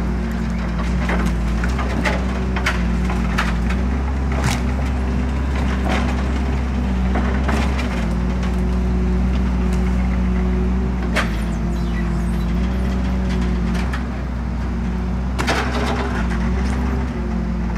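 NOE 170-6R skidder's six-cylinder 6.7-litre diesel running steadily while its crane grapple handles hardwood logs, with the logs and branches knocking, cracking and splintering in a scatter of sharp cracks. The loudest cracks come about four and a half seconds in, about eleven seconds in, and near the end.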